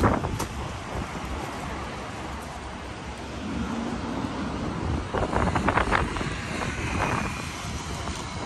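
City street ambience: traffic passing, with wind buffeting the microphone. There is a sharp knock right at the start and a short run of quick clattering sounds about five to six seconds in.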